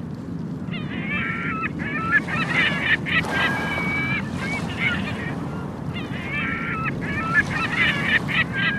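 Gulls calling in two bouts of repeated harsh cries, each lasting about three seconds, over the steady wash of surf on a beach.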